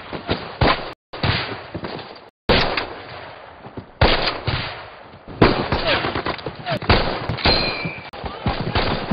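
Battle sound effects: rapid rifle shots and machine-gun bursts, one crack after another. The sound cuts out abruptly twice in the first few seconds.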